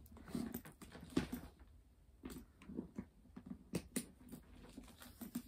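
Soft handling noises of a leather handbag and its shoulder strap: light rustling with a few sharp clicks, as from the strap's metal hooks.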